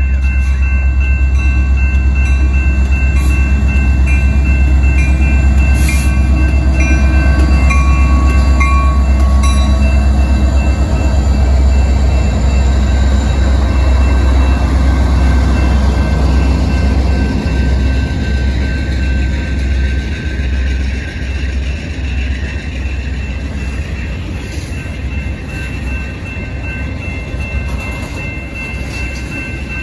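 CN freight train passing close by, led by an EMD SD75I and a GE C44-9CWL diesel locomotive: a heavy, loud engine rumble that eases about halfway through. The tank cars then roll past with a regular clacking of wheels over the rail joints. The grade-crossing warning bell rings steadily throughout.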